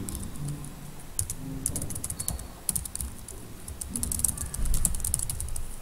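Typing on a computer keyboard: irregular runs of quick key clicks.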